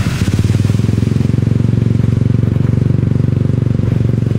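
Motorbike engine running steadily at a constant pace, a low pulsing drone, while riding through shallow floodwater, with a brief hiss of water spray at the start.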